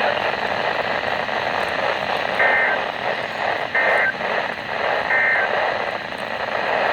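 NOAA Weather Radio broadcast with three short SAME digital data bursts, each a warbling two-tone chirp about a third of a second long and about 1.3 s apart. The bursts sound over a steady hiss of radio static. Short triple bursts like these are the end-of-message code that closes the Required Weekly Test.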